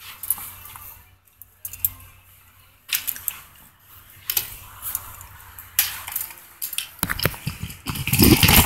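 Handling noise from a camera being moved about: scattered clicks, light clatter and rubbing, with a loud rumbling rub near the end.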